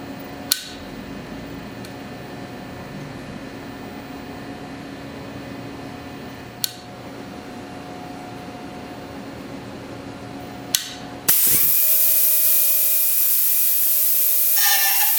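Steady machinery hum with three sharp clicks, then about 11 seconds in a high-speed machining spindle starts suddenly with a loud hiss. Near the end a steady whine joins it as the tool works the metal of the turbine nozzle part.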